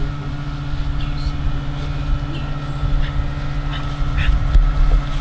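A steady mechanical hum, like a motor or engine running, with a few short high chirps over it.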